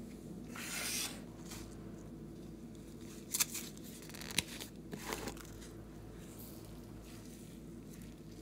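Small plastic toy containers handled and opened by hand: a rustling swish about a second in, then a few sharp plastic clicks and taps around the middle, over a steady low hum.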